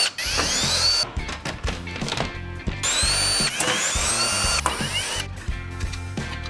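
Background music, with an electric screwdriver whirring up in several short runs as screws are taken out of a PC case.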